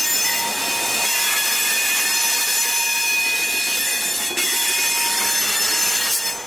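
Freight train wheels squealing on curved track as covered hopper cars roll slowly past, several steady high-pitched tones over the rumble of the cars. The sound drops away near the end.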